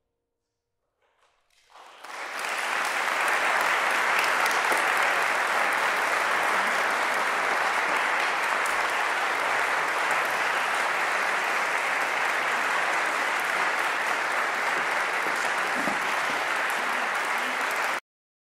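Audience applauding: the clapping starts about two seconds in, quickly builds to a steady, dense level, and cuts off suddenly near the end.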